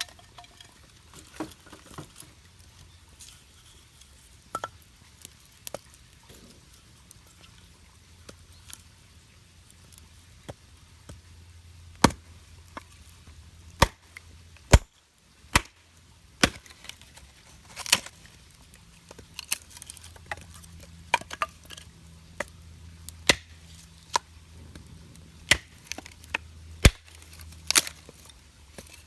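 Chopping on wood: a series of sharp, irregular knocks, sparse at first and more frequent and louder in the second half.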